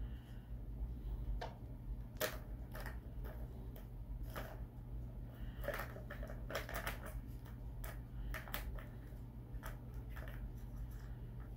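A cat batting at a three-tier plastic ball-track cat toy: the balls click and rattle against the plastic tracks in irregular taps and short clusters, some knocks sharper than others.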